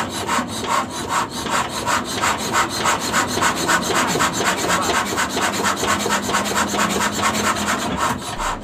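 S1115 single-cylinder diesel engine being cranked over without firing, a fast, even rasping rhythm of about six beats a second. The injector is not spraying fuel, so the engine does not catch.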